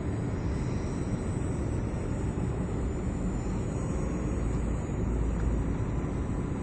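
Airboat's propeller running steadily: a thin high whine over a steady low rumble.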